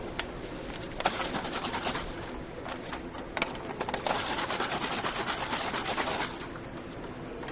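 Automatic sealing machine running: a steady hum with two spells of rapid clicking rattle, about a second in and again from about four to six seconds in.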